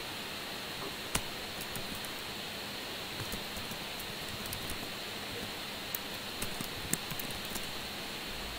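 Scattered keystrokes on a computer keyboard: short, irregular clicks over a steady background hiss.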